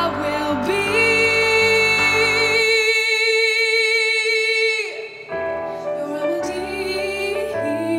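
Young female vocalist singing live over a backing accompaniment, holding one long note with vibrato for about four seconds that falls away at its end. The accompaniment drops out partway through the held note and comes back in with her next phrase.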